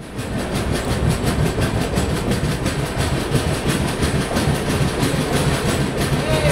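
Passenger train coach wheels rumbling and clattering over the rails in a rapid, even rhythm as the Konark Express runs along the platform, heard loud and close through the coach's open door.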